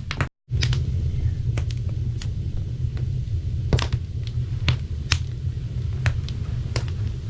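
Wood fire crackling, with irregular sharp pops and snaps over a steady low rumble. The sound cuts out for a moment near the start.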